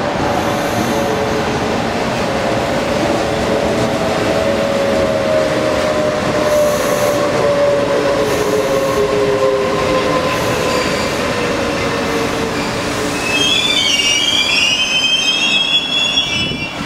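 Trenitalia E.402B electric locomotive hauling a passenger train, its traction motors whining over the rumble of the wheels, the whine falling slowly in pitch as the train slows. In the last few seconds, train wheels squeal in high, wavering tones.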